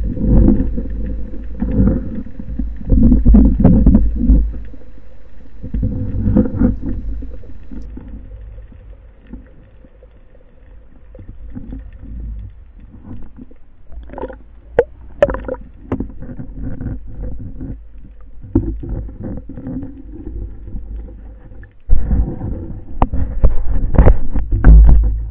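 Underwater rumble of water rushing over a speargun-mounted camera as the diver swims up, swelling near the start and again near the end, with scattered sharp clicks and knocks.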